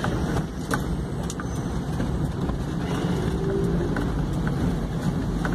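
Steady engine and tyre rumble of a vehicle driving on a wet road, heard from inside its cabin, with a few light ticks.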